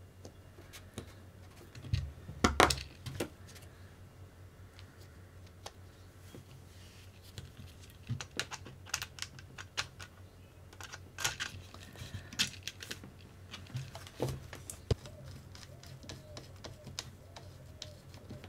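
Irregular small clicks and taps of hard plastic and metal parts being handled on a workbench, with a louder cluster of knocks about two to three seconds in, as RC car wheels are fitted and fastened with nuts.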